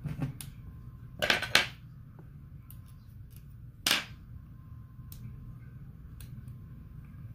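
Small sharp clicks and snaps of handling a CAT S48c smartphone while the SIM and micro SD cards are taken out of its card slot with a small pick tool: a quick cluster of clicks about a second in and a single sharp click near the middle, with faint ticks between.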